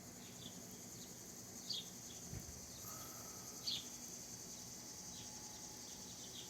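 Faint outdoor birds and insects: a steady high-pitched insect hum, with a few short bird chirps, two of them louder, about two and four seconds in.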